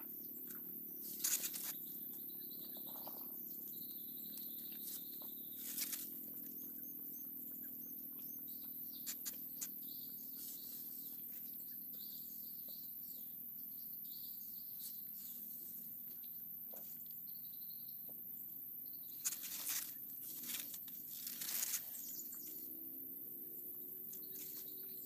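Faint swamp ambience: a steady high insect drone over a low hum, with an occasional chirp. A few short rustles and clicks come about a second in and again around twenty seconds in.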